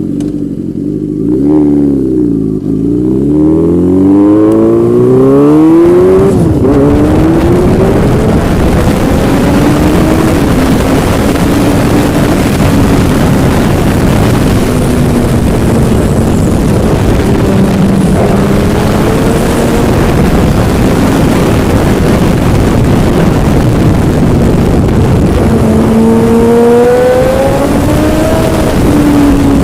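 Yamaha motorcycle engine revving hard, then pulling through the gears with its pitch climbing and dropping again and again, under a heavy rushing noise.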